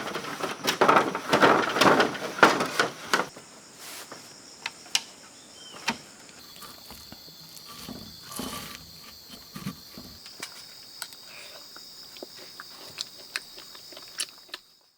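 Crunching and crackling of footsteps through dry leaf litter and twigs for about three seconds, then a steady high insect buzz with scattered small snaps, cutting off suddenly near the end.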